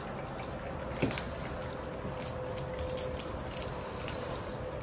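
Cats eating from food bowls on a wooden floor: small scattered clicks and clinks of mouths and bowls, with one sharper click about a second in, over a faint steady hum.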